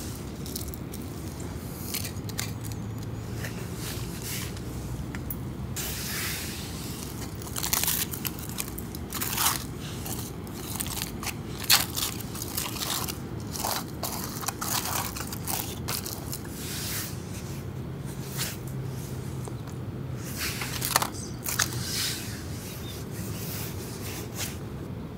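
Aluminium foil crinkling and scraping in irregular rustles as a hot foil-wrapped parcel is opened by gloved hands on a metal plate. It starts about six seconds in, and a low hum comes and goes underneath.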